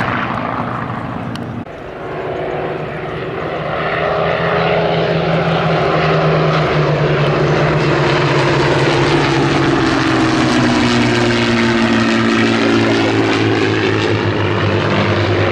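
Propeller fighters passing low in formation, engines droning. The sound breaks off sharply about a second and a half in, then builds as a Hawker Sea Hurricane's Rolls-Royce Merlin V12 and two Hawker Nimrod biplanes' Rolls-Royce Kestrel V12s approach. Later the engine note drops in pitch as they go by.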